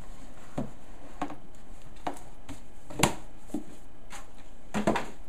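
A cardboard retail box being handled, its flap closed and the box picked up: a string of light knocks and rustles, the sharpest about three seconds in and another near the end.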